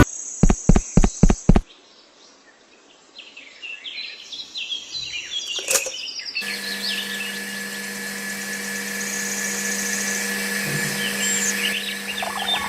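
Birds chirping, over a steady hum that starts about halfway through. A quick run of six clicks opens it, followed by a brief quiet gap.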